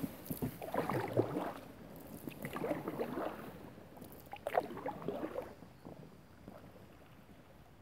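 Kayak paddles dipping and splashing in calm river water, a stroke about every two seconds, three times, then fading to faint water sounds near the end.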